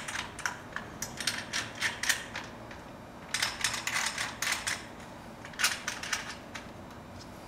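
Runs of quick, light metallic clicks and rattles, in several bursts, from metal brackets and bolt hardware being fitted and tightened on a truck-deck rail.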